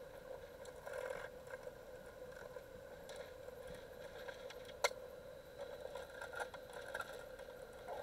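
Hammerhead Resort 30-inch battery pool vacuum running with a steady motor hum, water swishing in swells as it is worked along the pool floor, and one sharp click about five seconds in.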